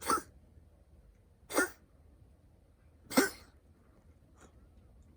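Domestic cat coughing in a fit: three short coughs about a second and a half apart, then a faint fourth near the end. The owner wonders whether the coughing is an allergy to humans.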